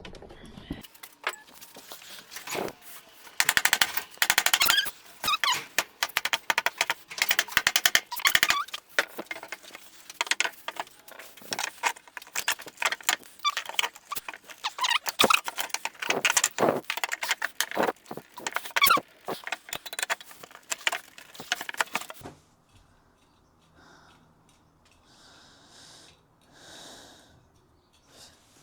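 Large nail being worked out of old pallet wood: a dense, irregular run of clicks and scrapes that stops after about 22 seconds, leaving only faint handling sounds.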